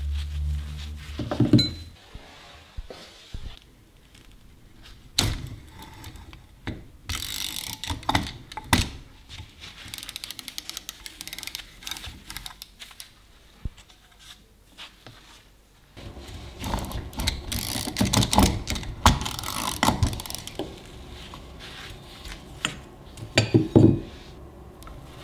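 Hand tools working on the rusty hub and parts of an antique Metabo hand-cranked grinder as it is taken apart: scattered metallic clicks and knocks, a busier stretch of scraping and clicking in the second half, and a quick run of loud clicks near the end.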